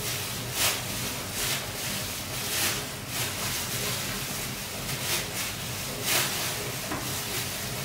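Hands in thin plastic gloves kneading soft mashed sweet potato dough on a metal tray: the gloves crinkle and the dough squishes in irregular strokes, roughly one a second.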